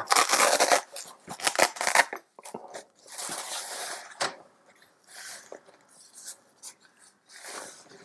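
Velcro fastening of a fabric tool-kit wrap ripped apart, loudest in the first two seconds, then the cloth case rustling as it is unfolded, with a few light taps.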